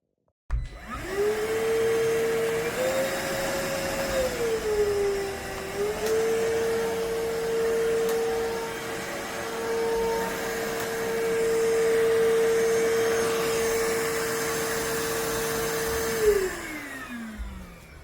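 iwoly C150 cordless stick vacuum switched on and running, a steady motor whine over rushing air. Its pitch steps up and back down briefly in the first few seconds. Near the end it is switched off and the whine falls away as the motor spins down.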